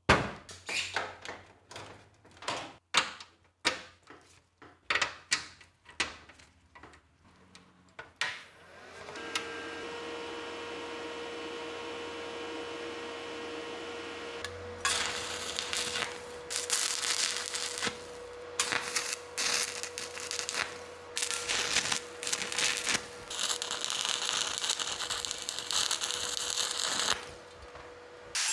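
A run of sharp knocks and clicks from handling metal parts. Then a small power tool's motor starts and runs with a steady hum. About halfway through, a harsh, uneven scraping noise joins the hum as the tool bites into the rusty metal part.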